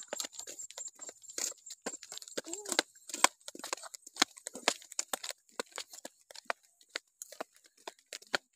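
A child crunching a crisp snack close up, with its packet crinkling: a quick, irregular run of sharp crunches and crackles.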